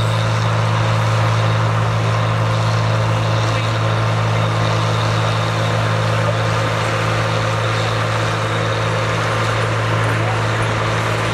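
Caterpillar motor scraper's diesel engine running at a steady speed as the machine drives slowly past, a deep, even drone.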